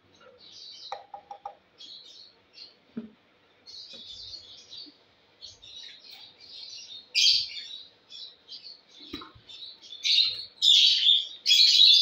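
Lovebirds chirping: a run of short, high chirps that gets louder and denser near the end.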